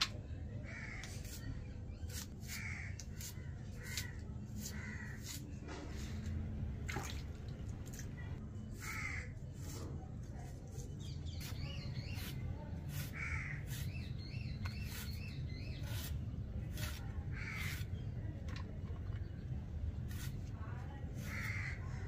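Crows cawing repeatedly, a short call about every one to two seconds, over a steady low rumble.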